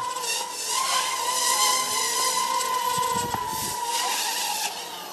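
Micro quadcopter's small brushed motors and propellers whining in flight, the pitch wavering as the throttle changes. Near the end the whine drops away as the battery dies and the flight board cuts the motors at its low-voltage limit.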